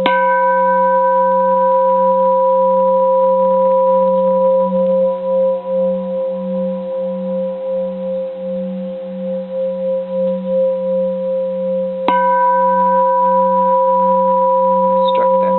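Edo-period bronze Japanese Buddhist temple bell struck twice with its striker, at the start and again about twelve seconds in. Each strike rings on in a long sustained tone with a low hum and several higher tones, the higher ones fading first and the low hum pulsing slowly as it decays.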